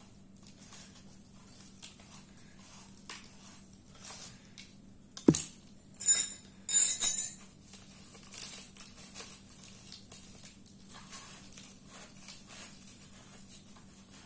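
Dried cow-dung seal being chipped and scraped off the top of a clay pot with a metal tool. A single sharp knock about five seconds in is the loudest sound, followed by two short bursts of scraping and crumbling, with faint scratching and rustling around them.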